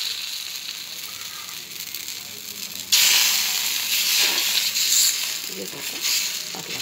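Dosa batter sizzling on a hot tawa as a steel ladle spreads it out. The hiss fades at first, then jumps loud again about three seconds in as the batter is pushed onto fresh hot pan.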